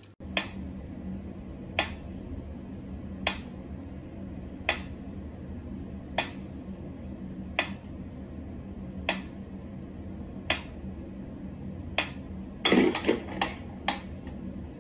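Mechanical pendulum metronome ticking slowly, one sharp click about every second and a half, over a low steady hum. Near the end a short burst of louder knocks and rattles breaks in, then two more clicks.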